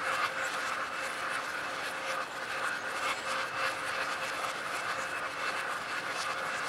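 Steady rain falling on a lake's surface: an even hiss of drops, with many small individual drop ticks.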